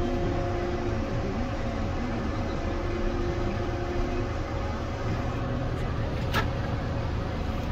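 Tractor engine running steadily, heard from inside the cab: a constant low rumble with a faint steady whine over it. One sharp click sounds about six seconds in.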